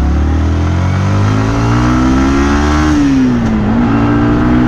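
Yamaha MT-15's 155 cc single-cylinder engine pulling under acceleration, its pitch rising steadily, then dropping at an upshift about three seconds in and climbing again.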